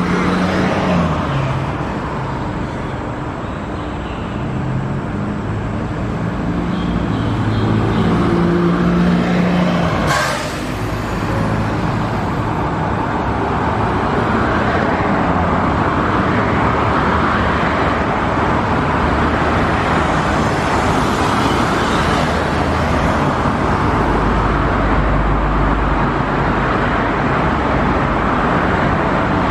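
Steady heavy road traffic: cars and larger vehicles passing continuously on a busy road. There is a single sharp knock about ten seconds in.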